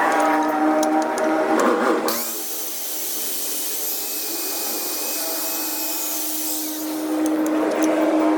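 A power tool running, louder and rougher for about the first two seconds and again from about seven seconds in, steadier and quieter in between.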